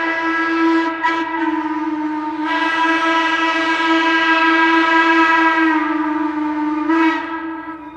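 Norfolk & Western hooter steam whistle blowing one long, steady note that swells louder about two and a half seconds in, dips slightly in pitch near six seconds, and dies away near the end.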